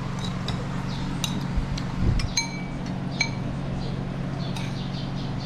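Chopsticks and spoons clinking against ceramic bowls and dishes at a meal table: a handful of separate clinks, a couple of them ringing briefly, and a soft thud about two seconds in. A steady low hum runs underneath.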